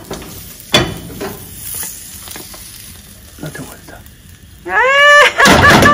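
Frying a beetroot-and-onion egg tortilla in an oiled pan: a sharp knock about a second in, then quiet sizzling. Near the end a voice gives a rising whoop, and a loud burst of sizzling follows as the flipped tortilla goes back into the hot pan.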